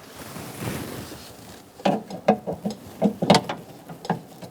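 Sharp, irregular clicks and rattles of a door lock cylinder and its retaining clip being handled and fitted into a 2002–2006 Honda CR-V front exterior door handle, starting about two seconds in after some soft handling noise.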